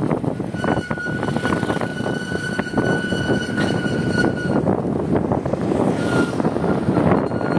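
Wind buffeting the phone's microphone on a moving two-wheeler, with road and vehicle noise. A steady high-pitched whine comes in just under a second in and holds for about four seconds, then returns briefly near the end.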